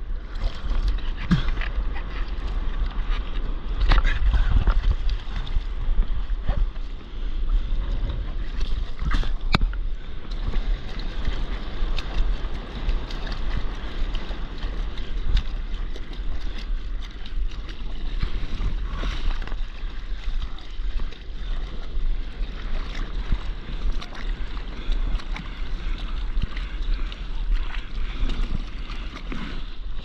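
Water splashing and sloshing against a stand-up paddleboard as it moves through the sea, over a steady low rumble of wind on the microphone, with scattered short splashes.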